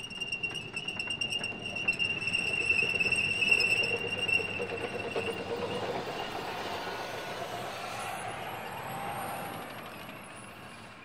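Tank passing by, with a high, steady squeal that stops about halfway through; the sound is loudest three to four seconds in and then fades away.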